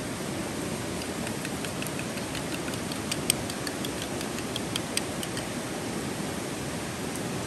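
A metal spoon clinks against a small bowl while beating egg wash: a run of light, quick ticks, about four a second, from about a second in until a little past five seconds. Under it is a steady background hiss.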